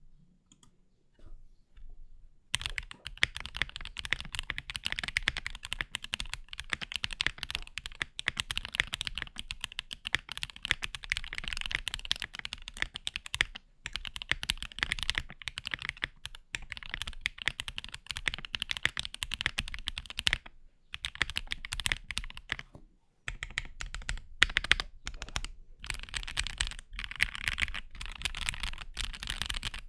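Fast typing on a Keychron Q4 aluminium 60% mechanical keyboard. A dense stream of keystrokes starts about two and a half seconds in and runs with a few short pauses, breaking into choppier runs of keys near the end.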